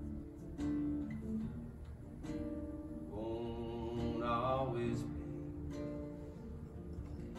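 Acoustic guitar played solo in a slow song, single picked notes and chords ringing between sung lines. About three seconds in, a short wordless sung phrase rises and wavers over the guitar for a couple of seconds.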